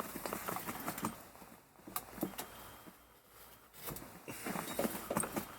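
Irregular handling noises: clusters of short clicks, light knocks and jangles with rustling between them, bunched about a second in, around two seconds, and again near the end.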